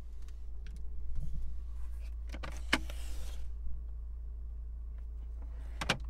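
Hand handling plastic interior trim: a short rustle with a sharp click a little before the middle, a few light clicks, and another sharp click near the end.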